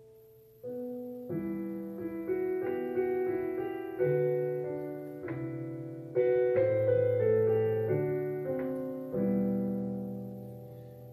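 Piano playing the introduction to a sung responsorial psalm: a slow series of chords, each struck and left to fade, beginning about a second in.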